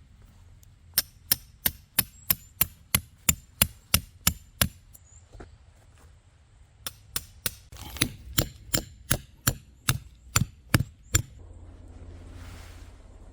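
Rapid, evenly spaced hammer-like blows, about three a second, in two runs of a dozen or so with a short pause between, each with a faint metallic ring. A brief rustling follows near the end.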